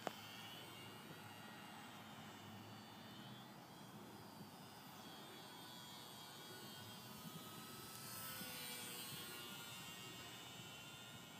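Faint whine of a ParkZone Ultra Micro T-28 Trojan's small electric motor and propeller flying overhead, the pitch sliding up and down as the plane turns and passes, growing a little louder about eight seconds in.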